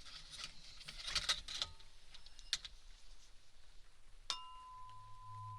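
Small clinks and taps of ear-cleaning tools being handled. About four seconds in, a tuning fork is struck and rings a single steady pure tone.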